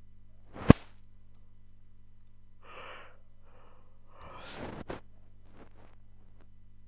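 A sharp click just under a second in, then two breathy sighs, the second longer and ending in another click, and a few faint ticks of keyboard typing near the end, over a low steady hum.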